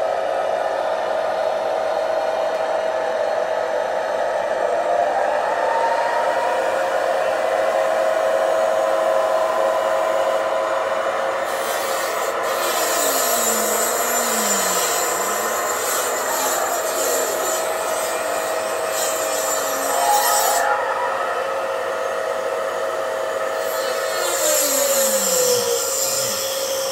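Gauge 1 model railway running: a steady mechanical whine with a few slow gliding tones, one falling away near the end, over a rubbing hiss that comes in about halfway through and again near the end.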